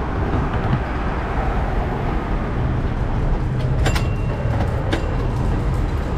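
1925 Melbourne W2 class electric tram running along its track, with a steady low rumble of wheels on rail. A few sharp clicks come about four and five seconds in.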